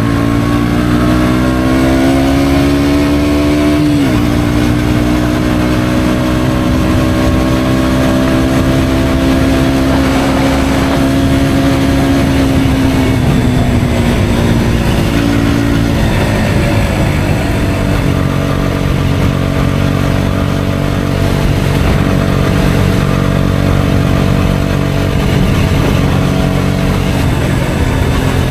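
KTM Duke 125's single-cylinder engine through an Akrapovic exhaust, accelerating with two quick upshifts, one right at the start and one about four seconds in. The pitch then climbs slowly, eases down as the throttle is rolled off around the middle, and holds steady at a cruise to the end.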